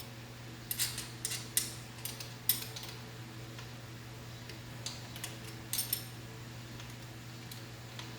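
Light metal clinks and clicks of hand tools and hardware being handled while fitting a carburetor, in irregular clusters over the first six seconds, with a steady low hum underneath.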